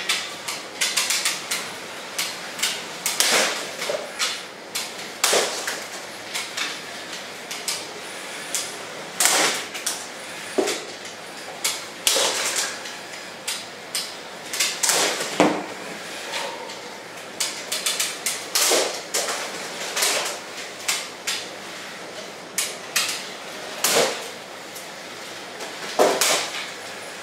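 Lego combat robots' spinning weapons striking each other: irregular sharp plastic clacks and clatters, at times several a second, over a steady whir of the spinners.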